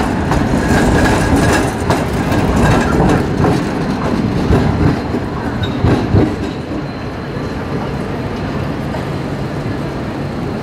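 Articulated low-floor tram (a Helsinki Variotram) rolling past over a junction of tram rails, its wheels clacking over the joints and crossings for about the first six seconds. Then the clacking stops, and a steadier street noise with a low hum remains as traffic and another tram draw near.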